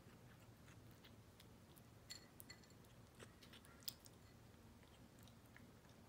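Kitten chewing food, faint irregular crunching clicks, the loudest one about four seconds in.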